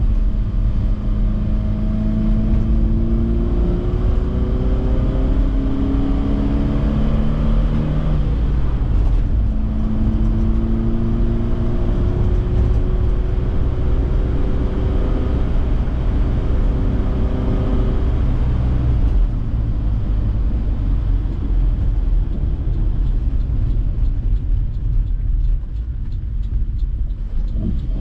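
Engine and road noise of a 1966 Alfa Romeo Giulia TI (1.6-litre twin-cam four-cylinder), heard from inside the cabin as the car is driven. The engine note climbs in pitch in several steps over the first few seconds, then in one long steady climb. After the middle it settles to a quieter, easier run under the road noise, and it picks up again at the very end.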